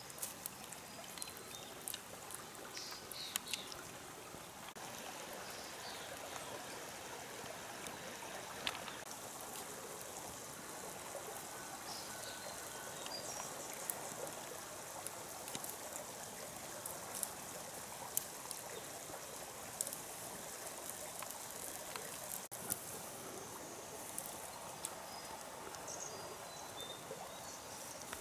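Steady rush of a small forest stream running, with scattered small clicks and a few faint high chirps over it.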